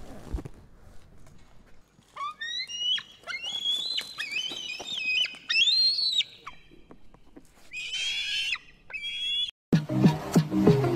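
An eagle giving a series of high-pitched whistling calls that step and glide upward, then a harsher screech. Near the end, electronic dance music with a heavy beat cuts in suddenly.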